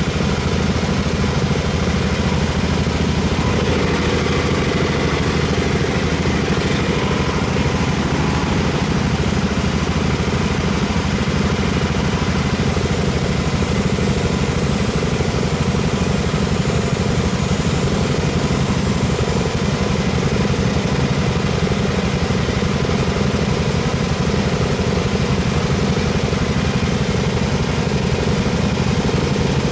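Garden tractor's small engine running at a steady, unchanging speed.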